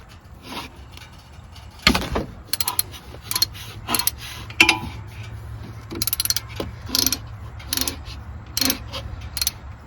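Socket ratchet clicking in short spurts as the 12 mm oil filter cover bolts are loosened. A steady low hum starts about two seconds in.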